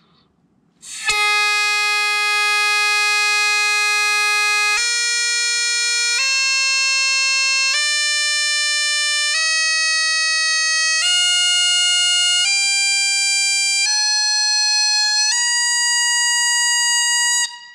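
Highland bagpipe chanter, a David Naill plastic chanter with a stiff J. Higgins reed, mouth-blown and played loud up the scale from low G to high A. It plays nine held notes, each a step higher than the last; the first is held for about four seconds and the rest for about a second and a half each. The chanter starts about a second in and cuts off just before the end.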